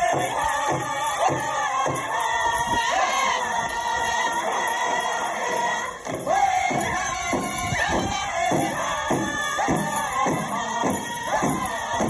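Powwow chicken dance song: a group of singers carrying the melody over a steady drumbeat of about two to three strokes a second, the beat standing out more plainly from about halfway through.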